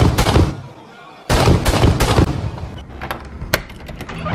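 Loud, harsh bursts of sound in the first couple of seconds, then a couple of sharp clicks from a door knob's latch as it is turned.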